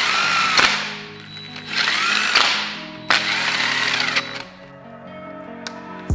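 Cordless drill-driver run in three short bursts, its motor whine rising and falling each time as it spins bolts down on the engine's oil pump. Background music plays underneath.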